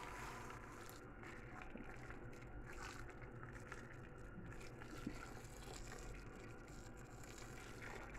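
Faint steady background noise with a low hum, and one light click about five seconds in.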